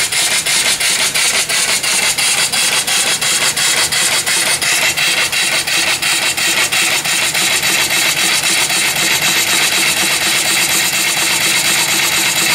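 Vertical steam engine (3-inch bore, 4-inch stroke) running on steam, its exhaust chuffing in a rapid, even beat over a steady hiss of exhaust steam blowing from the exhaust pipe. A steady tone joins in about five seconds in.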